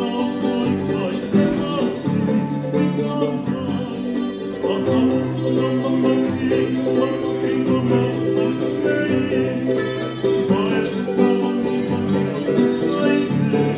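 Ukulele and two acoustic guitars strummed together in a steady rhythm, with men singing along.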